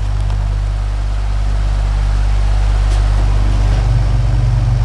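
Lakewood R12/DSK 12-inch oscillating desk fan running on its low speed with oscillation on: a steady low hum with a rush of air, one low tone growing stronger about three and a half seconds in.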